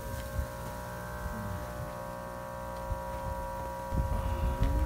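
Steady electric hum from the pump and aeration equipment of live seafood holding tanks, a single even drone made of several steady tones, stopping just before the end.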